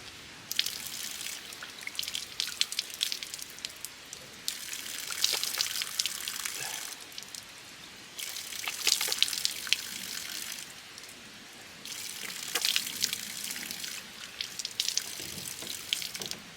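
Water running and splashing in five separate bursts of about two seconds each, with short pauses between.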